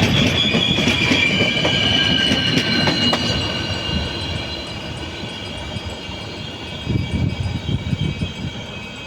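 Passenger train coaches rolling past on the rails: a high wheel squeal over a rumble of wheels, the squeal fading out over the first four seconds as the train grows quieter. A run of louder wheel knocks over rail joints comes about seven seconds in.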